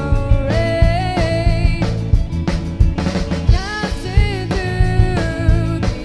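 Indie pop-rock band playing live: drum kit keeping a steady beat under guitar and a sung melody.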